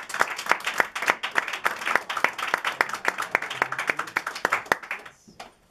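Applause from a small audience, each clap distinct, thinning out and stopping about five seconds in.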